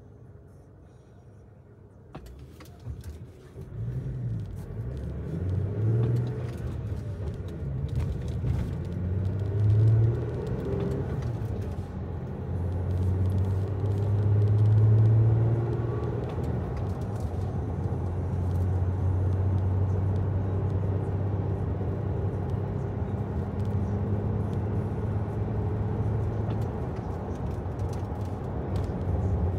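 A motor vehicle's engine comes up about two seconds in, rising and falling in pitch several times before settling into a steady drone.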